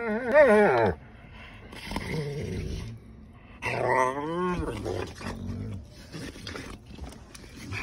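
Mastiff-type dogs play-fighting, growling in play: a loud wavering growl in the first second and another about four seconds in that drops in pitch at its end, with quieter growling and scuffling between.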